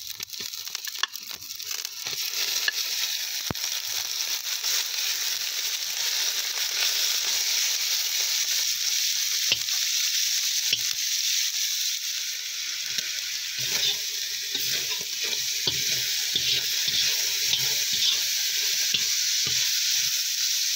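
Beef strips sizzling hard in hot butter in a cast-iron kazan, the sizzle swelling over the first couple of seconds as the meat goes in. From about two-thirds of the way through, a metal skimmer scrapes and taps against the pot as the meat is stirred.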